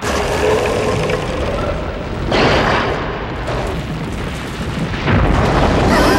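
Animated-battle explosion sound effects: a string of booms and blasts with a heavy low rumble. A fresh blast breaks in about two seconds in, and another about five seconds in.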